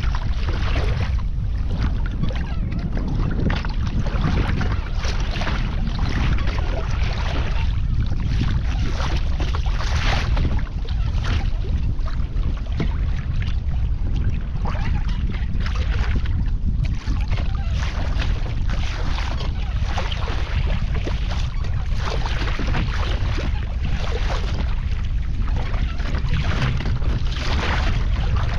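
Wind buffeting the microphone in a steady low rumble, with water splashing and sloshing in irregular surges every second or two around a sea kayak.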